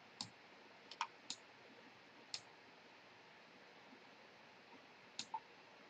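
Computer mouse clicks over near-silent room hiss: about seven short, sharp clicks, some in quick pairs like double-clicks.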